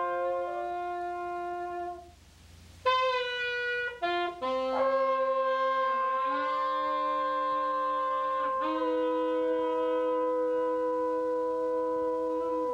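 Free-jazz horns holding long, steady notes, two or three pitches at once. They break off about two seconds in, come back in about a second later, and one line bends down in pitch around six seconds.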